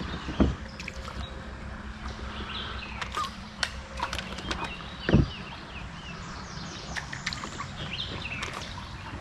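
Steady wash of river current around a drifting kayak, with two dull thumps, one about half a second in and one about five seconds in, and a few light clicks. Small birds chirp now and then.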